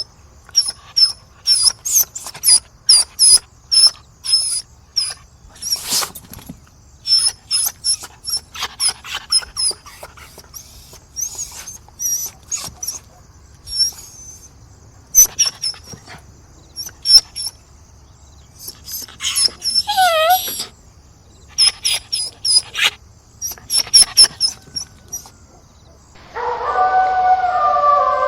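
Dog whining and yipping in many short, high-pitched cries, typical of a dog begging, with a longer whimper falling in pitch about twenty seconds in. Near the end a steady, siren-like wail begins, slowly falling in pitch.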